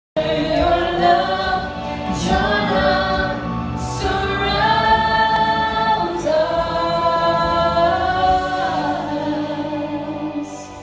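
Live worship band: several voices singing a slow song together in long held notes over guitar accompaniment. The singing ends near the end, leaving a quieter held note.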